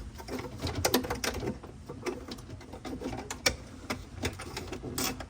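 Irregular clicks and knocks of hands handling parts while fitting a refrigerator evaporator fan motor and its wiring in place, with one sharper knock about three and a half seconds in.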